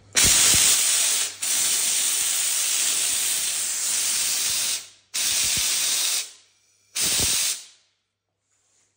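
Bieffe Farinelli steam cleaner's gun releasing pressurised steam in four hissing blasts that start abruptly. The first is short, the second runs about three seconds, and two shorter ones follow near the end.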